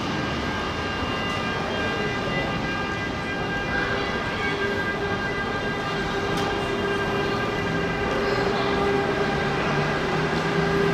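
SBB Re 450 electric locomotive standing at the platform, its electrical equipment giving a steady electric hum and whine made of several held tones, with a low tone stepping up slightly near the end.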